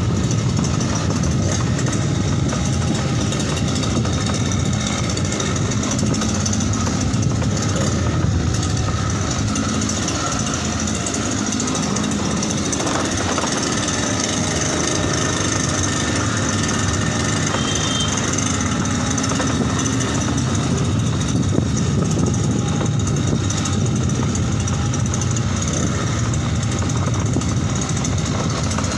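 A 52 cc two-stroke brush-cutter engine on a homemade motorized bicycle, running steadily under way.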